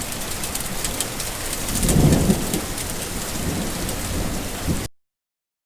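Steady rain falling, a continuous hiss with scattered drop ticks. A low rumble swells briefly about two seconds in, and the sound cuts off suddenly near the end.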